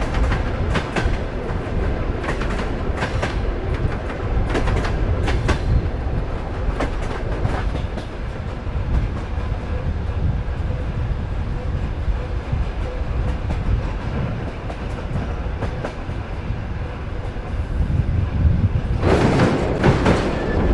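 Sleeper train carriage running on rails: a steady rumble with wheels clacking over rail joints, the clacks clearest in the first few seconds, and a louder rush near the end.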